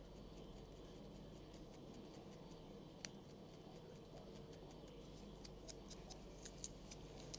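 Near silence: a low steady hum with faint, scattered small clicks and ticks, one slightly sharper about three seconds in and a couple more near the end.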